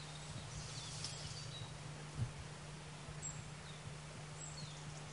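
Faint outdoor ambience: an even hiss over a steady low hum, with a few faint, short, high chirps and one soft bump about two seconds in.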